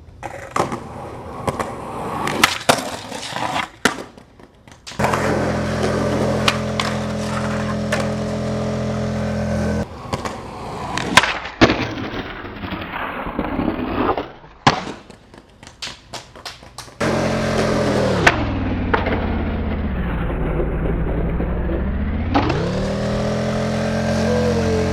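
Skateboarding: wheels rolling, the board popping and slapping down, and trucks grinding on a ledge. In two long stretches the sound is a steady pitched drone, and in the second its pitch sinks and then rises again, like audio slowed down and brought back to speed.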